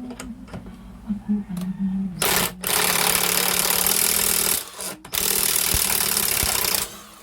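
Makita 18 V LXT cordless impact driver running under load, its impact mechanism hammering in two loud bursts of about two seconds each, with a brief pause between them.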